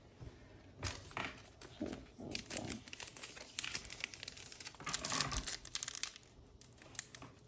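Foil trading card pack crinkling and tearing as it is pulled open by hand, in irregular crackles.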